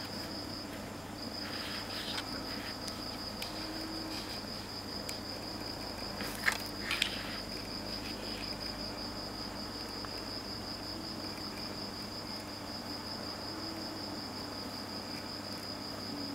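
An insect trilling steadily at a high pitch, with a short break near the start. Two short sharp clicks come about six and a half and seven seconds in.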